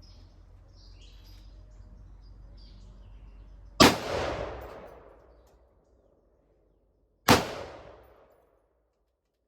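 Two gunshots about three and a half seconds apart, each a sharp crack with a long echoing tail. Faint birdsong comes before the first shot.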